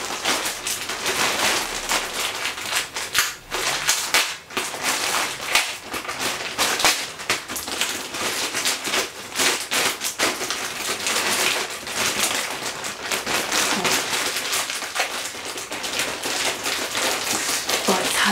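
Grey plastic mailing bag crinkling and crackling as it is handled and pulled open, a dense, unbroken run of rapid crackles.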